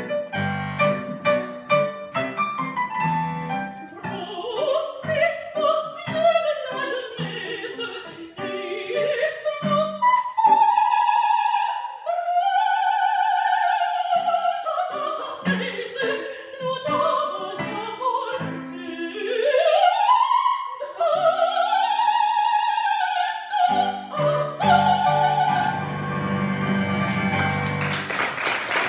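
A female opera singer sings an aria with digital piano accompaniment. Quick runs give way to long high notes held with vibrato and a sweeping climb to a held top note. The keyboard then plays the closing chords alone, and applause breaks out near the end.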